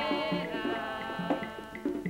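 Afro-Cuban percussion music played from a 78 rpm record: low hand-drum strokes under a held melodic note that fades away, with a sharp high click, like claves or a wood block, starting to tick out a quick steady rhythm near the end.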